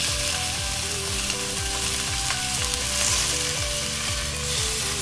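Lamb shanks searing in hot oil in a cast iron Dutch oven, a steady sizzle as the ends of the shanks, held upright, are sealed.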